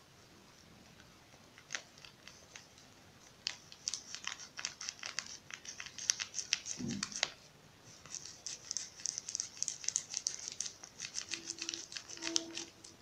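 A packet of Cerelac infant cereal crinkling as the dry powder is poured from it onto a metal spoon, a dense run of small crackles and rustles. It starts with a few scattered ticks and thickens about three and a half seconds in, with a short lull just before the midpoint.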